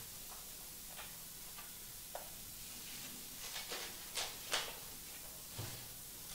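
Quiet room tone during a pause for silent prayer, with a few scattered faint clicks and knocks and an irregular cluster of them about three and a half to four and a half seconds in.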